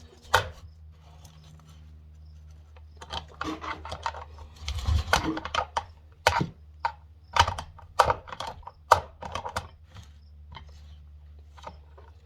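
Irregular metal clicks and knocks of parts and tools being worked inside a Mahindra 5010 tractor's front final drive housing, thickest in the middle of the stretch, over a steady low hum.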